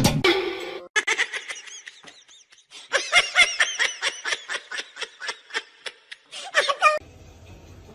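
High-pitched laughter in quick repeated bursts, about three to four a second, after a drum-backed music track cuts off about a second in.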